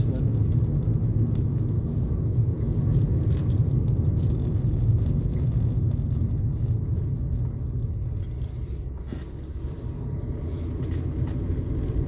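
A car driving on a paved road, heard from inside the cabin: a steady low rumble of engine and tyres.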